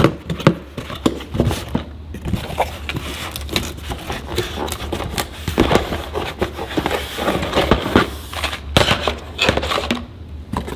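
Cardboard shipping box being opened by hand: packing tape peeling away and the cardboard flaps crackling and rustling in irregular sharp bursts.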